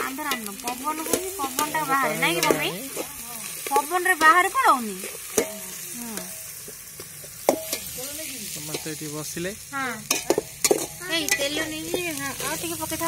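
Sliced onions sizzling as they fry in oil in a metal pot, stirred with a metal spatula that scrapes and clicks sharply against the pot a few times. Voices talk over the frying, loudest about four seconds in.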